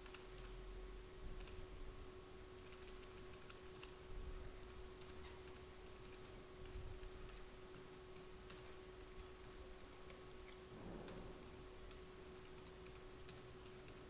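Computer keyboard typing: faint, irregular key clicks as an email address is typed, over a steady low hum.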